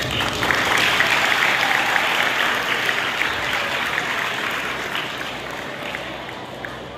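Audience applauding, breaking out suddenly and dying away over the last few seconds.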